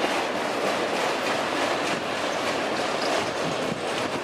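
A BNSF freight train's autorack cars roll past close by with a steady rumble of steel wheels on the rails and faint, irregular clicking.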